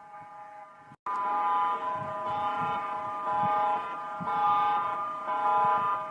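An electronic alarm blaring: a steady chord of several tones that pulses louder and softer under a second apart. It drops out briefly about a second in and comes back louder.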